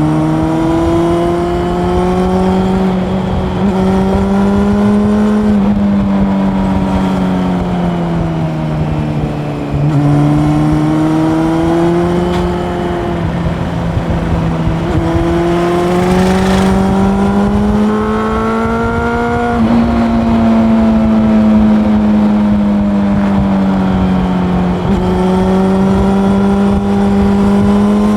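Honda CB400 Super Four's inline-four engine under way, its pitch rising and falling in long sweeps as the throttle opens and closes, with several sudden pitch steps at gear changes. Road and wind noise run underneath.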